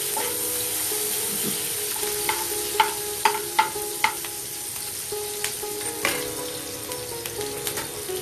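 Sliced onions sizzling as they fry in hot oil in a pan, stirred with a spatula. There are several sharp taps of the spatula against the pan about two to four seconds in, and another around six seconds.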